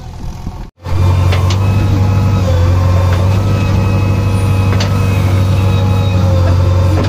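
JCB backhoe loader's diesel engine running steadily, heard close up from the machine; it starts abruptly just under a second in, after a short break in the sound.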